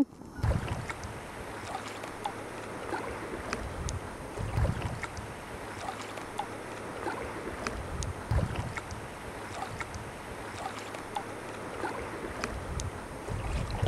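Sea kayak being paddled on the ocean: water splashing and trickling around the hull and paddle, with small scattered splashes. Low gusts of wind rumble on the microphone about every four seconds.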